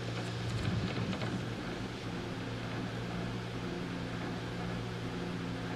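A steady low hum under a hiss, with a brief spell of small clicks and rustling about half a second to a second and a half in.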